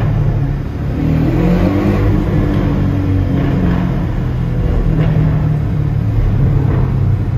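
Porsche Cayman GTS engine and exhaust heard from inside the cabin as the car accelerates through a tunnel, the tunnel walls echoing it back. The engine note drops briefly about a second in, then climbs again, with an occasional exhaust pop of the crackling 'popcorn' overrun.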